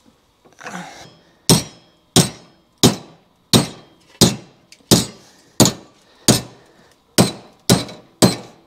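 A hammer strikes a thin plasma-cut 14-gauge steel part clamped in a bench vise, bending it up along its slotted fold lines. A short scrape comes about a second in, then about eleven sharp, ringing metallic blows at an even pace, roughly three every two seconds.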